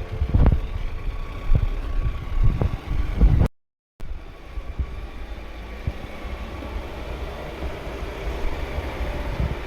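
A 4x4 pickup truck's engine running as it drives a rough track, with irregular thumps for the first few seconds. The sound cuts out for about half a second, then the engine rumble goes on more steadily.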